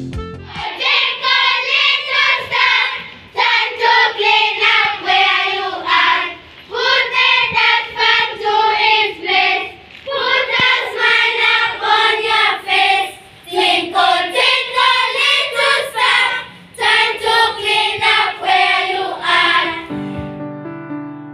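A group of children singing together in unison, in short phrases with brief pauses. Near the end the voices stop and piano music comes in.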